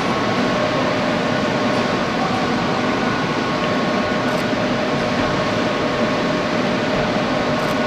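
Steady mechanical din of a car assembly plant floor: an even hum of machinery and ventilation with a few faint steady tones.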